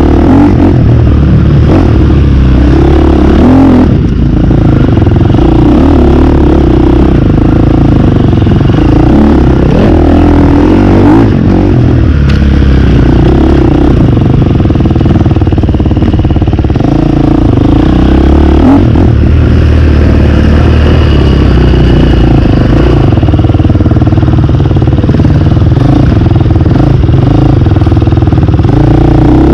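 Dirt bike engine running close to the microphone while riding, loud and continuous, the revs rising and falling with the throttle, with the bike's parts clattering over rough ground.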